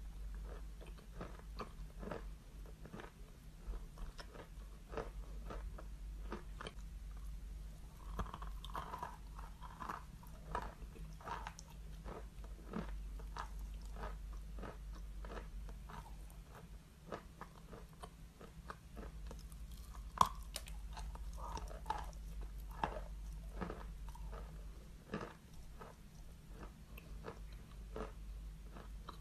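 A mouthful of chalk being chewed and crunched, a steady run of small crackling crunches several times a second, with one sharper crunch about twenty seconds in.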